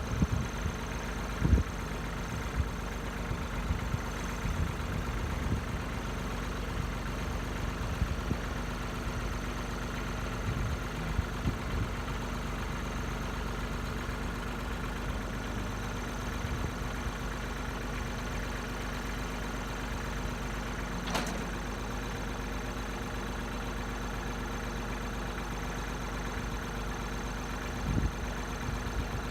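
An engine idling steadily, with a few short knocks over it.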